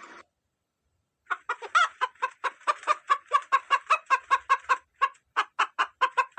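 A hen clucking in a quick, even run of short clucks, about five a second. It starts after a second or so of silence and breaks off briefly near the end.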